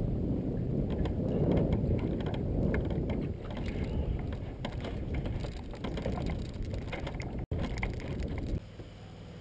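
Wind rumbling on the microphone and choppy water against an aluminum boat hull, with a run of light knocks and clicks as someone moves about on the deck; the noise drops away sharply near the end.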